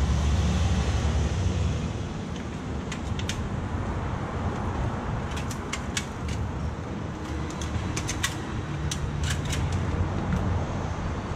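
A scatter of sharp little clicks and clinks, several in quick pairs and clusters, from utensils and containers being handled at a street food stall counter. Under them run a steady low street rumble and a faint even hiss from okonomiyaki cooking on a teppan griddle.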